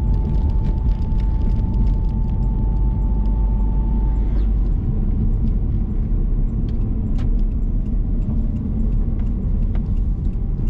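Engine and road rumble inside the cabin of a Subaru WRX STI on the move, steady throughout. A thin steady whine runs over it for the first four seconds or so, with a few light clicks scattered through.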